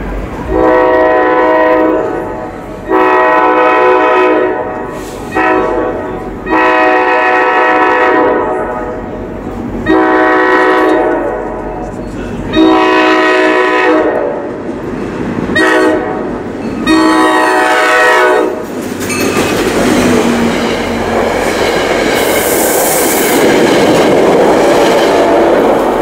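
Approaching train's multi-tone horn sounding the grade-crossing signal, long-long-short-long, twice over. Then the rumble and wheel noise of the train grow loud as it reaches the crossing, with a brief high-pitched squeal near the end.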